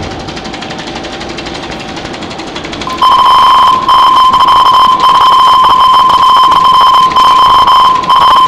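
Experimental noise performance: a rough, noisy drone for about three seconds, then a loud, piercing steady tone cuts in, alarm-like, flickering with brief dropouts.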